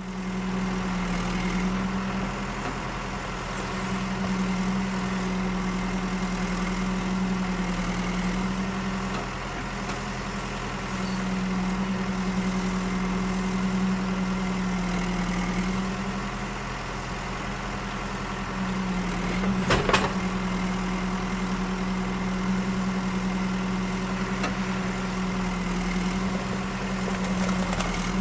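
Construction machinery engine running steadily, its low drone swelling and easing every few seconds, with one sharp knock about two-thirds of the way through.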